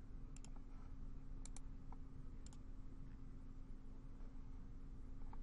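Faint computer mouse clicks, each a quick double tick of the button going down and up, three about a second apart and another near the end, over a faint steady hum.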